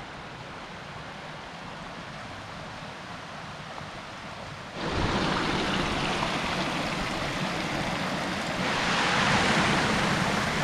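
Waterfall rushing: a fainter steady rush that turns suddenly much louder about five seconds in, and louder again near the end.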